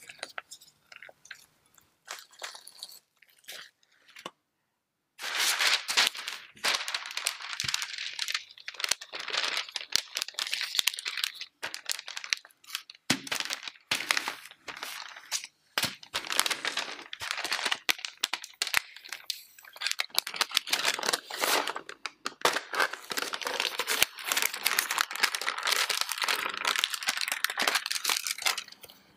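A silicone spatula scraping and pressing shortcrust dough in a glass bowl. Then, after a brief silence about five seconds in, a wooden rolling pin rolls the dough out between sheets of parchment paper, and the paper keeps up a dense crinkling and rustling.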